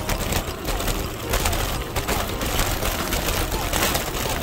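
Bicycle tyres rolling and crunching over a gravel road, the bike rattling over bumps, with wind rumbling on the microphone.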